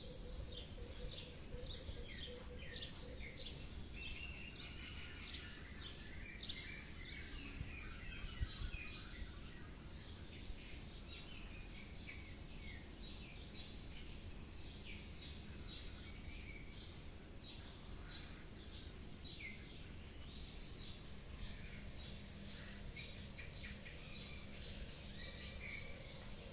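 Small birds chirping in many short, quick calls over a faint steady background noise, with a soft knock about eight seconds in.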